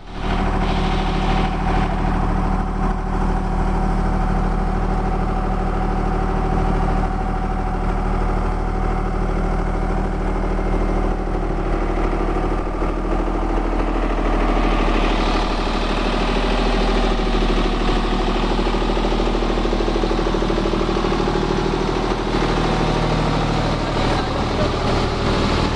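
Tractor diesel engine running steadily under the load of a PTO-driven mechanical road broom. From about halfway through, the scratchy hiss of the spinning steel-and-nylon side brush sweeping the concrete kerb grows louder as it comes close.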